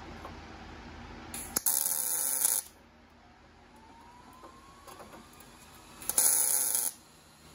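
Two short tack welds on sheet-metal body panels, each a hissing burst of about a second, the first a little longer, with quiet between.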